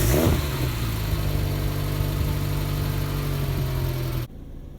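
Peugeot 306 XSi's 2.0-litre four-cylinder engine firing up, revving briefly and settling into a steady idle. About four seconds in it cuts off suddenly to a quieter hum.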